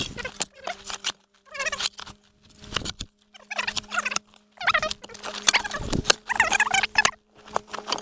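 Steel spade digging at the base of a stone-and-concrete pole, the blade scraping and grinding against stones and soil in a series of separate strokes, with a faint steady hum underneath.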